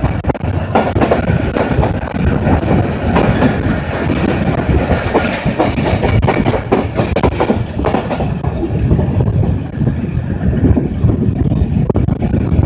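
Passenger train coaches running along the track, heard close from an open coach doorway: a steady rumble of the wheels with rapid clickety-clack over the rail joints, the clicks thickest in the first two-thirds.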